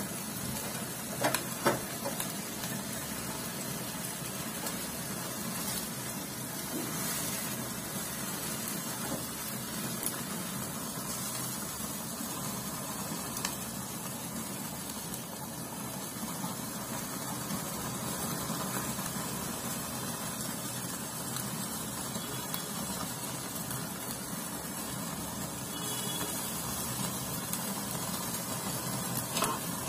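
Marinated chicken pieces sizzling on a wire mesh grill over an open gas burner flame, with the burner's steady hiss underneath as the chicken chars. A couple of short clicks about a second and a half in.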